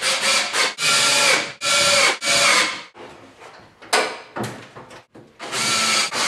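Cordless drill driving screws in a string of short runs, each about half a second to a second long at a steady pitch. Then come about two seconds of light knocks and handling, and another run near the end.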